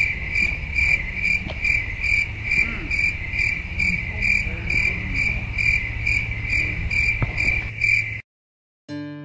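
Insects chirping: a high pulsing chirp repeating evenly about two and a half times a second over a low rumble, cutting off suddenly about eight seconds in.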